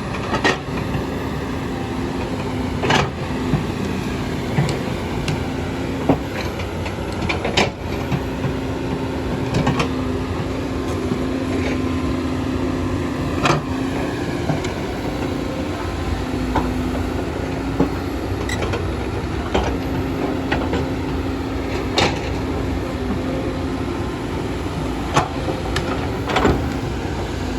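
Kobelco hydraulic excavator's diesel engine running steadily under load, with sharp knocks and clanks from the machine's work every few seconds.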